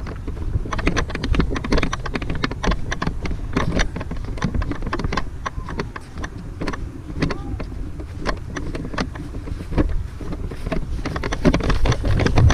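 Wind rumbling on a handheld camera's microphone, with frequent irregular knocks and thuds from the camera being carried on the move.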